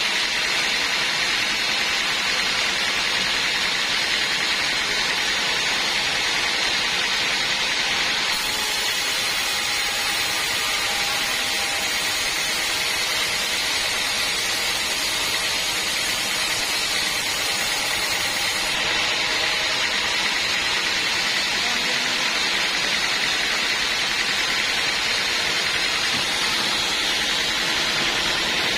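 Sawmill bandsaw running steadily through teak, a continuous even rushing noise with no breaks.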